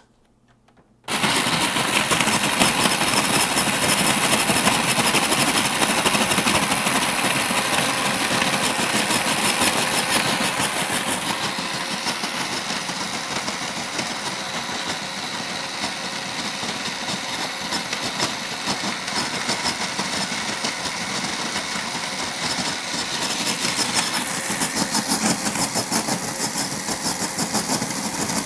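Electric snow cone machine switched on about a second in, its motor running steadily and shaving ice. Its hiss shifts in tone around the middle and again near the end.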